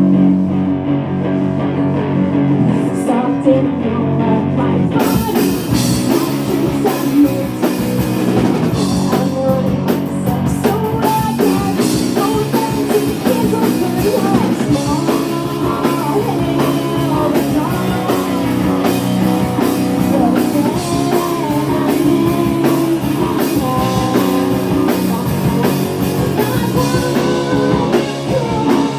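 Rock band playing live: guitars and bass, with the drum kit and cymbals coming in about five seconds in, and a voice singing over the band.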